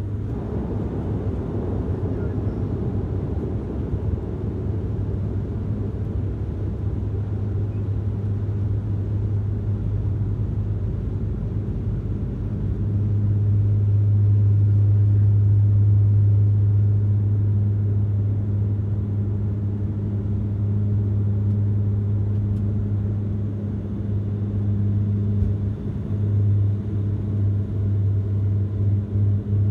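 Cabin sound of a Bombardier Dash 8 Q400 on its takeoff roll: its Pratt & Whitney PW150A turboprops and six-blade propellers give a loud, steady low drone, which grows louder about thirteen seconds in as power comes up. Near the end a fast, uneven rumble from the main gear rolling on the runway joins it, just before liftoff.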